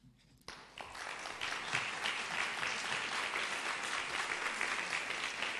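Audience applauding: the clapping starts about half a second in, swells within a second and goes on steadily.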